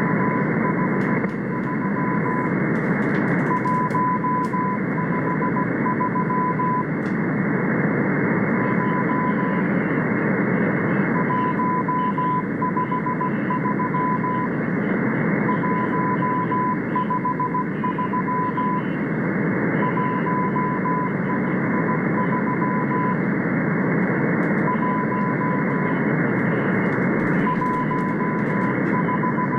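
Morse code from the M12 Russian number station received on shortwave: a single mid-pitched tone keyed on and off in dots and dashes, sent in short groups with pauses between them, over a steady hiss of band noise.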